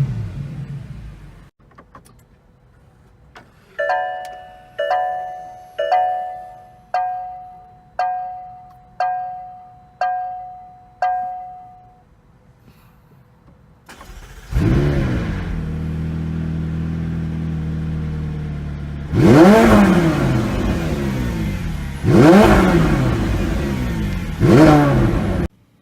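A car's warning chime sounds eight times, about once a second. A car engine then starts, settles into a steady fast idle, and is revved three times before being switched off.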